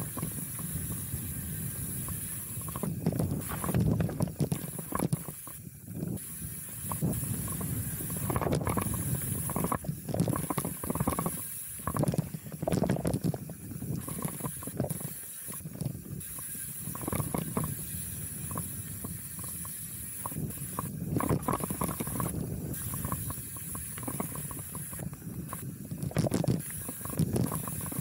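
Chromag Rootdown hardtail mountain bike riding down dirt singletrack: steady tyre noise on the trail, with frequent irregular knocks and rattles from the bike over bumps, and wind on the microphone.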